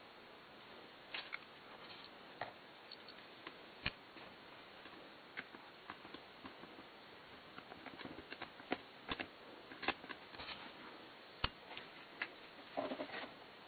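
Scattered small clicks and taps at uneven intervals over a faint steady hiss, sparse at first and bunching together in the second half.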